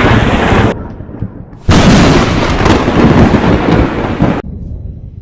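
Loud thunder from close lightning strikes. The first crash cuts off suddenly under a second in. A second sudden crack comes about a second and a half later and rumbles on for nearly three seconds before cutting off.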